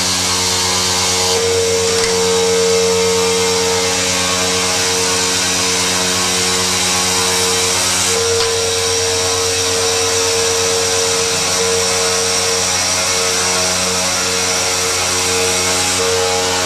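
CNC machine cutting a stone countertop slab: the spindle and cutter run steadily, a constant whine over a hiss.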